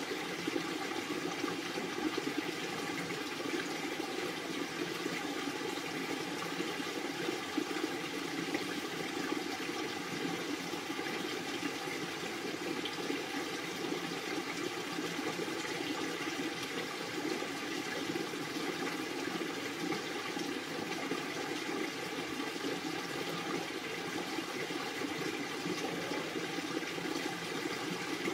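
Steady rushing sound of running water, unchanging in level.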